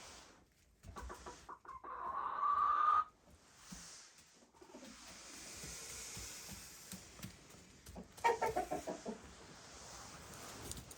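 Chickens clucking and calling: a loud drawn-out call about two seconds in, and a quick run of clucks near the end.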